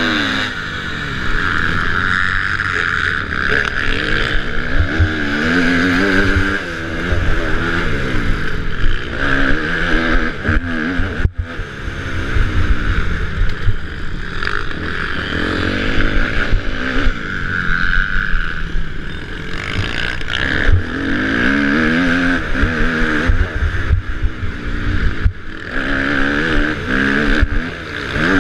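Kawasaki motocross bike engine, heard from a helmet-mounted camera, revving hard and dropping back again and again as the rider accelerates, shifts and brakes, its pitch rising and falling. The sound drops out briefly about eleven seconds in.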